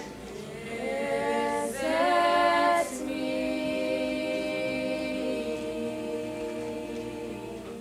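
Choir of voices singing a cappella in slow, held notes: a louder phrase about two seconds in, then one long sustained chord that slowly fades near the end.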